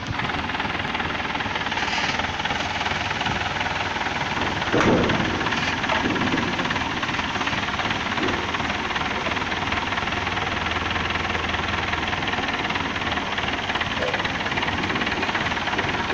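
Voltas forklift engine running steadily, with a single loud knock about five seconds in.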